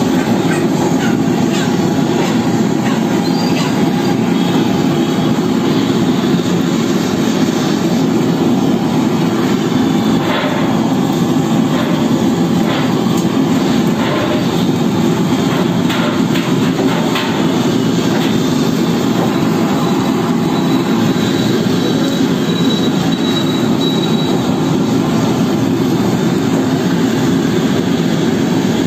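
Handheld gas blowtorch flame burning with a loud, steady rushing noise as it singes the skin of a plucked chicken. A few faint clicks in the middle.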